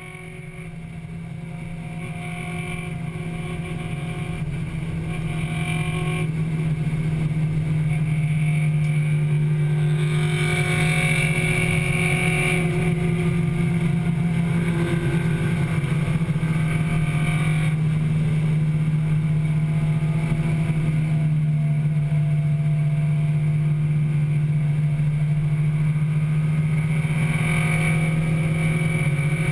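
1998 Acura Integra Type-R's 1.8-litre VTEC four-cylinder engine running at steady revs, heard from inside the cabin, its pitch held constant and growing louder over the first several seconds.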